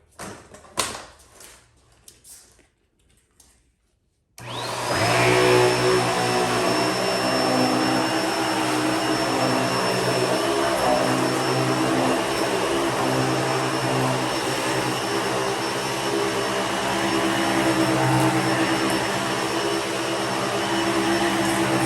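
A few light clicks and knocks, then about four seconds in the Bissell Pet Hair Eraser Turbo upright vacuum switches on. Its motor whine rises quickly to a high steady pitch and then runs steadily.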